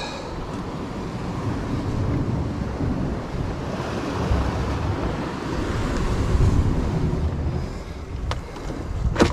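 Waves washing against a rocky shore, with wind buffeting the microphone as a steady low rumble. Near the end come a couple of sharp knocks.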